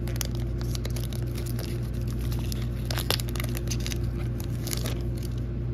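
Foil wrapper of a Pokémon TCG booster pack being torn open and crinkled as the cards are pulled out, with irregular crackles, over a steady low hum.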